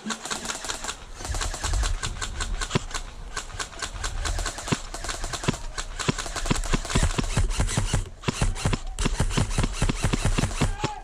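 Airsoft guns firing in rapid automatic bursts, a fast stream of sharp clicks and snaps with a short let-up about eight seconds in.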